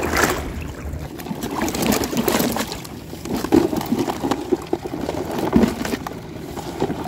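Shallow seawater sloshing and splashing around wading legs and a floating plastic crab box, with a few short knocks as the box is handled and a crab goes in.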